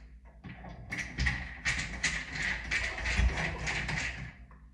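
Fast run of metallic clicking and rattling from a screwdriver turning out the screw at the hub of a Delta shower valve handle. It starts about a second in and stops just before the end.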